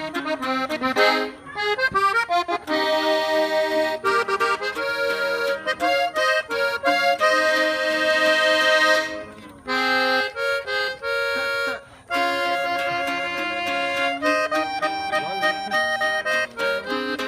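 Accordion playing the instrumental break of a norteño song, in runs of quick notes and held chords.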